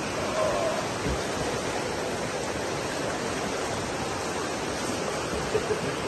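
Steady rush of a shallow river running fast over rocks in small rapids.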